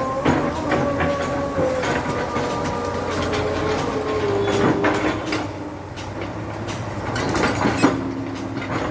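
Heavy machine running with a whine that shifts slowly in pitch, and repeated metallic clanks and knocks throughout: a JCB 3DX backhoe loader at work.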